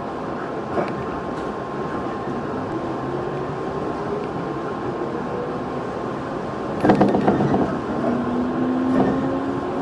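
Running sound inside a JR 211 series electric train: a steady rumble of wheels on rail, with a cluster of rail-joint clacks about seven seconds in and a faint whine slowly rising in pitch.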